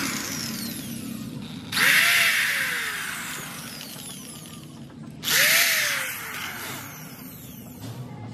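Electric drill boring into bamboo slats in two runs, about two seconds in and again about five seconds in. Each time the motor speeds up, then winds down after the trigger is let go.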